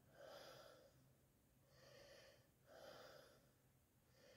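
Faint breathing close to the microphone: four soft breaths about a second apart over a quiet, steady low hum.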